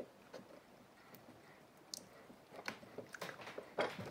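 Small clicks and scraping of a metal pry tool working at the seam of a plastic soap-dispenser housing, sparse at first and louder and more frequent near the end.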